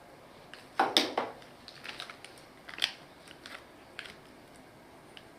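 Packaging being handled during an unboxing: a loud cluster of crackles and clicks about a second in, another crackle near three seconds, and a few scattered single clicks.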